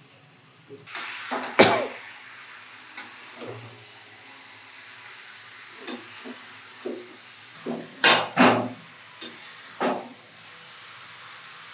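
Spice masala and fried onions frying in oil in a pan: a steady sizzle that starts about a second in. Over the sizzle come several short, sharp sounds, the loudest about a second and a half in and a close pair about eight seconds in.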